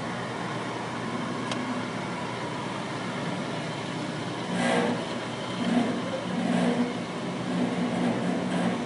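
Van driving slowly past with its engine running, over the steady hum of refrigerated container units. A brief louder burst of noise comes about halfway through, as the van's sound swells.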